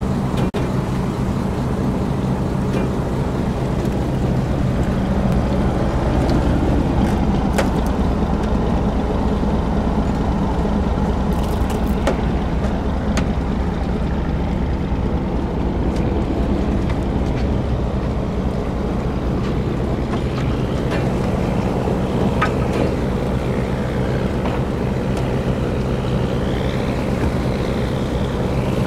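Small fishing boat's engine running at a steady drone, with a few faint clicks.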